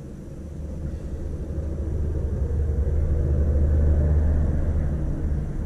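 A low rumble that swells, loudest about four seconds in, then eases a little.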